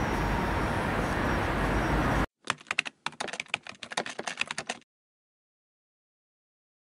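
Steady outdoor street noise for about two seconds, then a sudden cut to a rapid run of computer-keyboard typing clicks lasting about two and a half seconds, an editing sound effect as text types itself onto the screen.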